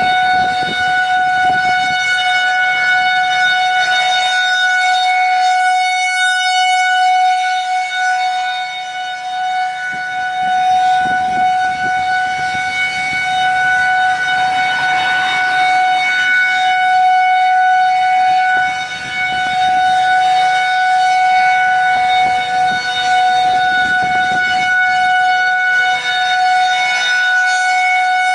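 Federal Signal 2001-SRNB rotating outdoor warning siren sounding its steady alert tone, pitched at about 740 Hz. The tone holds one pitch while its loudness slowly swells and dips as the rotating head sweeps around.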